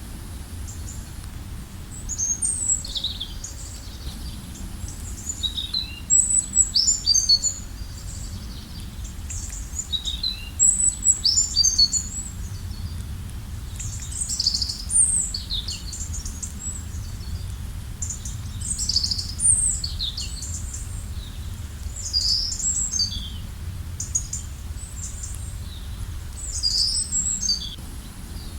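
Songbirds singing: short high chirps and quick trills in phrases every couple of seconds, over a steady low rumble.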